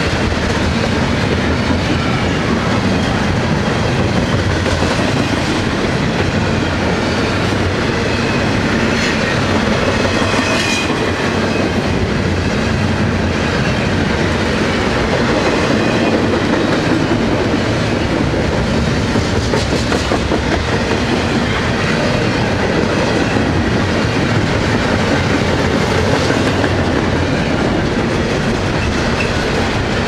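Double-stack intermodal freight train's well cars rolling past: a steady, loud noise of steel wheels running on the rails.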